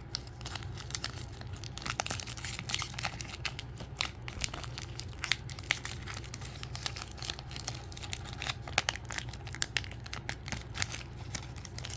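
Hands crinkling and tearing at the wrapper of a sealed photo-card pack: a continuous run of small crackles and rips.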